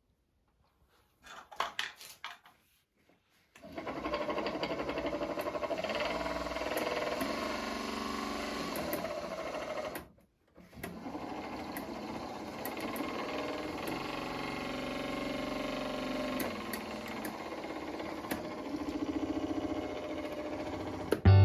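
Minn Kota Endura trolling motor running with a steady mechanical whir, the abnormal noise that the owner set out to find by taking it apart. A few clicks come first, then the motor runs, stops briefly about halfway and starts again.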